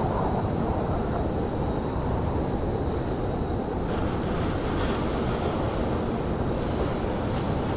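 Railyard ambience: a steady low rumble, with a thin, steady high whine over it.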